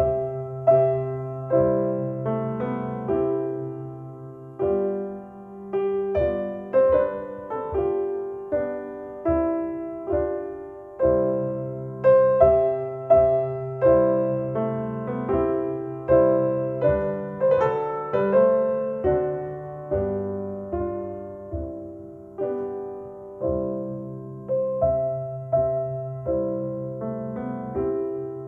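Solo piano music played back through Paradigm Persona 7F loudspeakers driven by an Accuphase E-4000 integrated amplifier. It is a slow piece, with a new note or chord struck about once a second over held bass notes.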